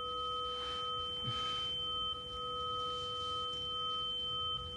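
A steady electronic drone of three pure ringing tones, a low, a middle and a high one, held together without change.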